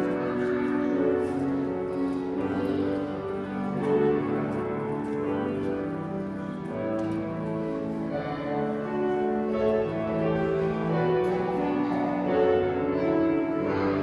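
Slow instrumental music on a keyboard instrument, with held chords that change every second or two.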